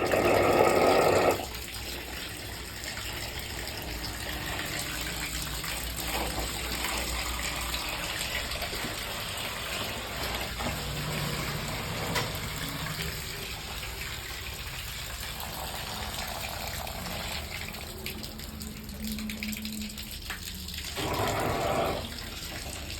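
Water running steadily from a tap into a bathroom during a water test, a continuous hiss. A louder, different sound cuts in during the first second or so and again briefly about 21 seconds in.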